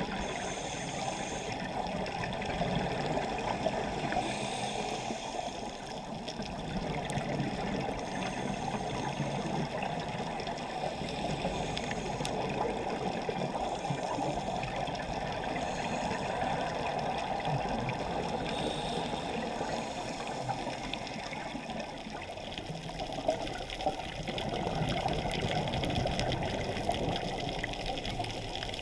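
Muffled underwater rushing and bubbling heard through a dive camera's housing, with a scuba diver's regulator bubbles swelling and fading every several seconds.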